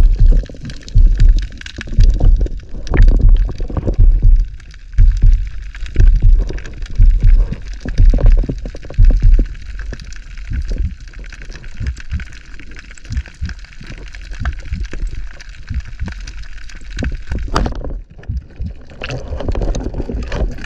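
Underwater water noise against a speargun-mounted camera: rhythmic low thumps and water rush about once a second, settling into a steadier hiss. Near the end there is a single sharp crack, the speargun firing, followed by louder water noise as the speared fish is handled.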